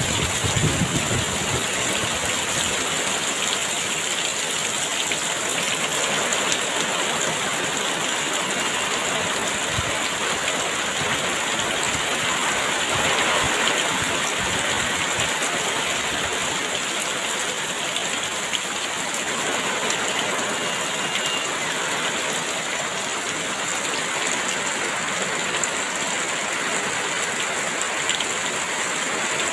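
Heavy rain falling steadily, a dense even hiss of drops with no let-up.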